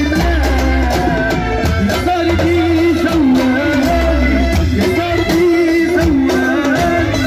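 Loud amplified live Tunisian party music: a male singer on a microphone sings a melodic line through a PA over backing music with a steady beat and heavy bass.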